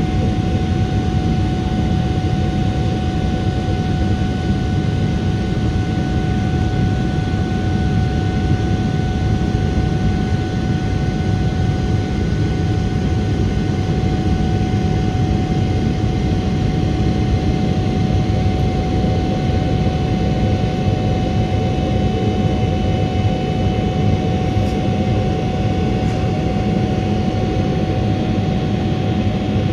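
A Boeing 777-300ER's General Electric GE90-115B turbofan at climb power, heard inside the cabin: a loud, steady roar with a constant thin whine on top.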